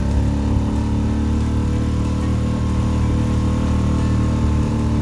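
Outboard motor of an inflatable boat running at a steady speed, a constant low hum that does not change.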